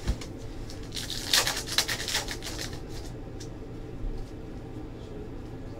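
Basketball trading cards being slid and flipped through by hand: a papery rustling about a second in that lasts around a second and a half, over a steady low hum.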